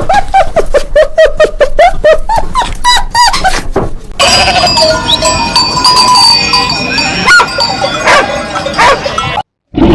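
Animal calls: a fast run of short, repeated calls for about four seconds, then a change to longer, drawn-out calls with held tones. The sound cuts out briefly near the end.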